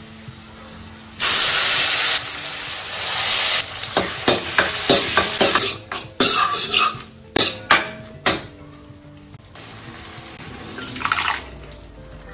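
Tadka of garlic, spices and tomato sizzling in hot ghee in a steel kadhai. The sizzle starts suddenly and loud about a second in. Then a steel ladle stirs and scrapes the pan in a run of sharp clinks, and a softer sizzle follows near the end.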